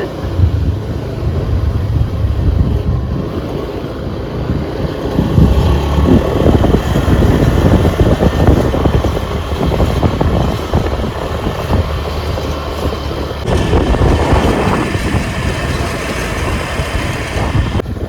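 A vehicle in motion: a steady low rumble mixed with wind buffeting the microphone, loudest in the middle.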